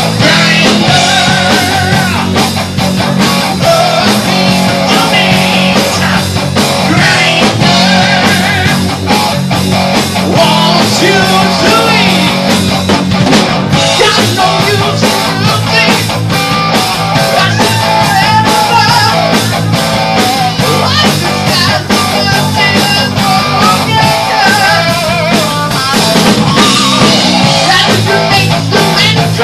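Rock band playing live: distorted electric guitars and a drum kit driving a steady beat, with a singer's voice over them.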